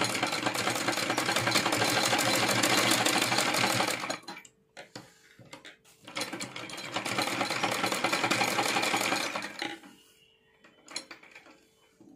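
Sewing machine running at a fast steady pace, stitching lace trim onto net fabric, in two runs: it stops about four seconds in, starts again a couple of seconds later and stops near the end, followed by a few faint clicks.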